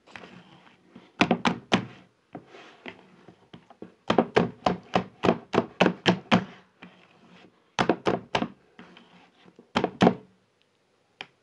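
A hand beating puff puff batter in a plastic bowl, mixing it smooth: sharp wet slaps in bursts, mostly three strokes at a time, with one longer run of about ten at roughly four a second.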